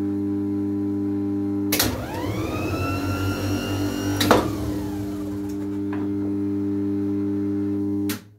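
Bench power supply humming steadily and noisily. About two seconds in, a click as a Gardner engine starter motor is energised on the bench; it spins up with a rising whine that levels off, and runs free until another click a couple of seconds later, when it winds down. The hum cuts off with a click near the end. The starter runs freely and appears to be fine.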